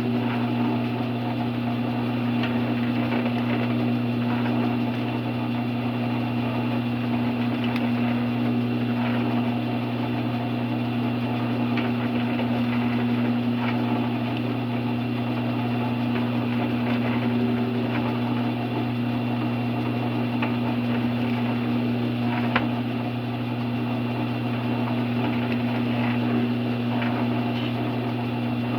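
Drill press running steadily with a constant electric-motor hum while holes are drilled in a wooden workpiece, with faint scattered ticks and one sharp click about three quarters of the way through.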